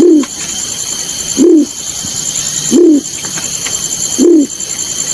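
Bird call known as balorinay: a short, loud, low hooting coo that rises and falls in pitch, repeated four times about every one and a half seconds, over a steady high-pitched hiss.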